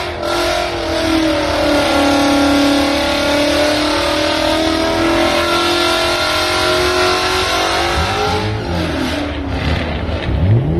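A car engine revved high and held at high revs for several seconds. About eight seconds in it drops off, then revs up again near the end.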